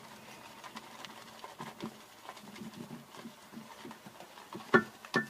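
Boar-bristle shaving brush working wet shaving lather, a soft irregular crackling patter. Two sharp knocks about half a second apart near the end.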